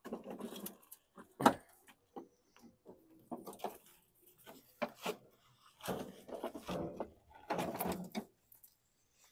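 A walk-behind lawn mower being tipped onto its side on concrete: a run of clunks and scrapes, with one sharp knock about a second and a half in the loudest, then more scuffing and shuffling as it is settled onto a rag.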